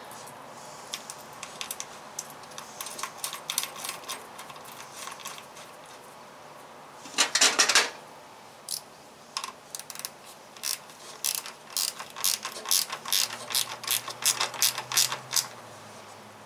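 Hand ratchet clicking in short strokes as a nut is tightened down on a battery terminal, with a louder dense rattle of clicks about seven seconds in and a steadier run of about three clicks a second afterwards.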